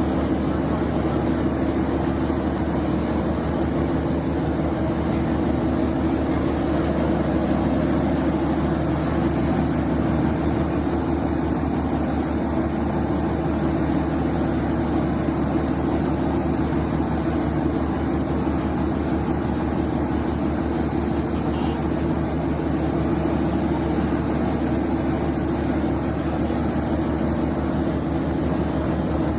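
Boat engine running steadily at a constant speed, with a fast even beat.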